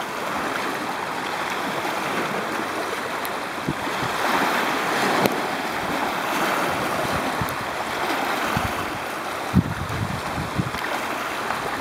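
Small waves of a freshwater lake lapping on a pebble shore, a steady rushing wash of water. A few brief low thumps come between about eight and a half and ten and a half seconds in.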